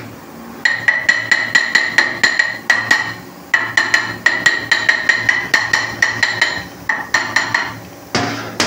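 Rapid metal-on-metal hammering, about five ringing strikes a second, in three runs with short pauses, then a single louder knock near the end.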